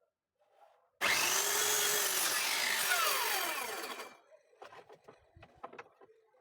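Handheld circular saw running for about three seconds, starting abruptly about a second in; its pitch falls during the last second before it stops. A few faint knocks follow.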